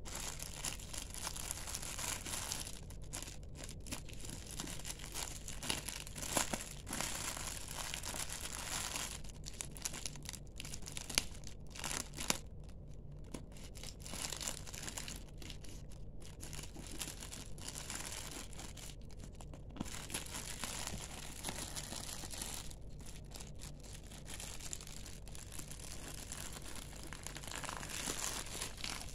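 Thin plastic courier bag crinkling and rustling as it is cut open with scissors and pulled apart by hand, with a few sharper snips and clicks along the way.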